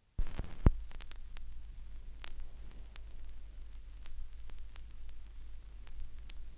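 Stylus set down on a 1991 Melodiya vinyl LP: a thump at the start, then the lead-in groove playing as surface crackle with scattered clicks over a steady low hum, before any music begins.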